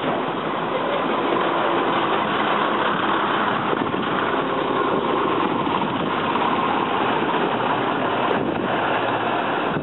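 Steady running noise of vintage electric tram Sheffield 74 moving slowly along the track, heard from its open rear platform, as it passes close to KLV 58, a rail-mounted diesel crane whose engine is running.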